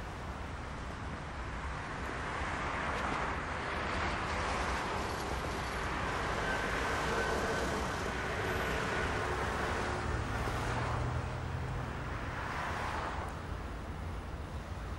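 Street traffic: vehicles passing on the road, one swelling up and fading away through the middle and another going by briefly near the end.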